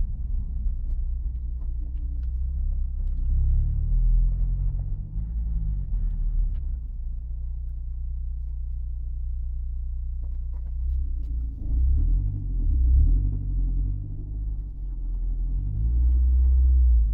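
Honda S2000 four-cylinder engine and drivetrain running with a low rumble, the engine speed rising and falling twice. A few faint clicks sound through it. The car has a transmission rattle and knock.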